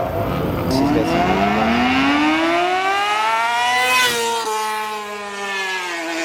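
A car engine accelerating hard away: its pitch drops just after the start with a gear change, climbs steadily for about four seconds, then falls away as the car lets off and recedes.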